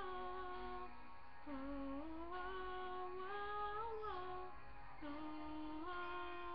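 A woman's voice singing long, held wordless notes, the melody stepping up and down between sustained tones.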